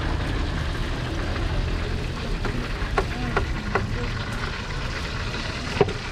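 Street-market ambience: a steady low rumble, with a few short clicks about three seconds in and a sharper one near the end.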